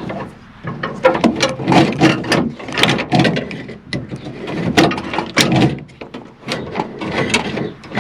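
Repeated clicks and knocks of plastic and metal parts being handled inside a pickup truck door as the interior door handle's linkage and cable are fitted back together.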